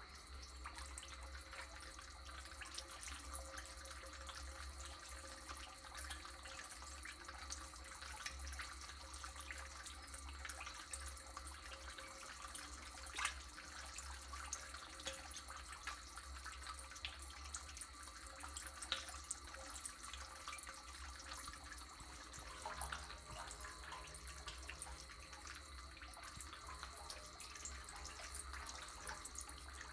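Water sloshing and dripping, with many small pops and splashes as Clarias catfish mouth and gulp at the pond surface. A steady low hum and a thin steady high tone run underneath.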